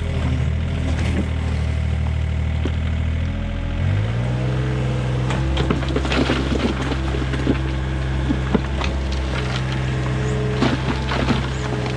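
IHI 30VX mini excavator's diesel engine running; about four seconds in its pitch rises and holds as the hydraulics take load. The steel bucket then scrapes and knocks through stony soil again and again.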